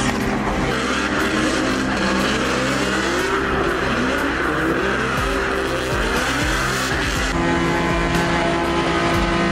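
Drift car engine revving hard, its pitch climbing again and again, over continuous tyre squeal as the car slides sideways. About seven seconds in, the engine settles into a steady high note.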